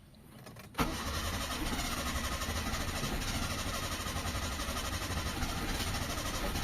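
Carbureted 4G13 engine of a Mitsubishi Lancer catching about a second in, then running steadily at idle. The engine is hard to start and its carburettor is not yet tuned.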